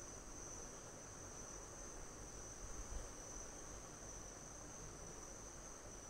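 Faint, steady, high-pitched trill of insects, like crickets.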